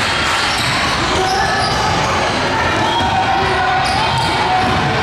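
Basketball being dribbled during a game, over a steady din of crowd and players' voices.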